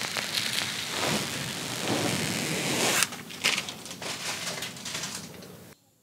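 Clear plastic protective film being peeled off a touchscreen, a continuous crinkling crackle. About halfway through it thins to scattered crackles, and it cuts off abruptly near the end.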